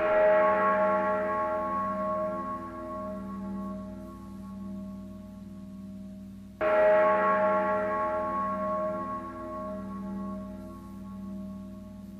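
A deep bell struck twice, about six and a half seconds apart, each stroke ringing on with a slowly pulsing low hum and fading away.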